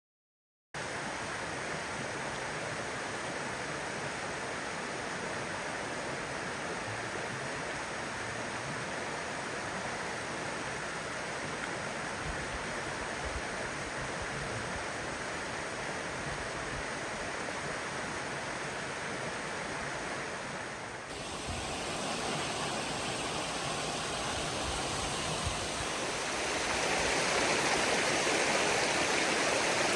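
Headwater mountain stream rushing steadily, starting abruptly just under a second in. The water sound changes about 21 seconds in and grows louder about 26 seconds in.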